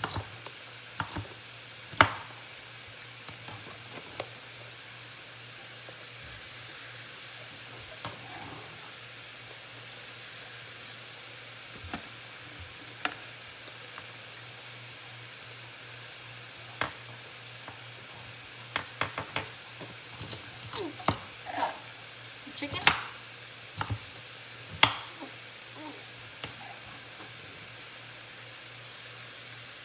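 Chicken breast sizzling in coconut oil in a frying pan, a steady hiss throughout. Over it come occasional sharp knocks of a knife chopping vegetables on a cutting board and a spatula working in the pan, thickest about 19 to 25 seconds in.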